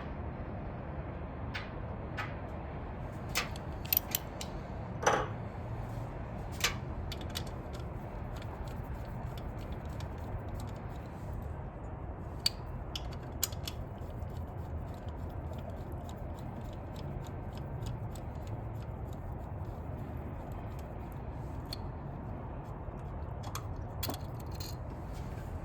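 Scattered light metallic clicks and clinks of hand tools on the ignition coil of a Mustang 3.8 V6 as it is unbolted, the loudest few between about three and seven seconds in, over a steady low background hum.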